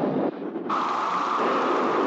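Studio-made storm sound effects: a dense, steady rain-like hiss that cuts out briefly about a third of a second in, then comes back brighter.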